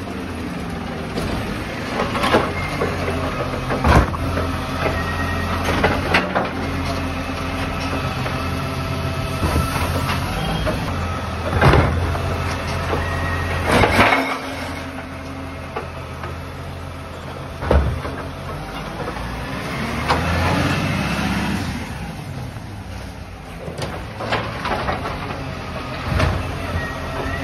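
Side-loading recycling truck's diesel engine running steadily while its hydraulic arm grabs, lifts and tips a wheelie bin into the hopper. Repeated sharp clanks and crashes of the arm, the bin and its load of cardboard and wine and beer bottles, loudest about midway.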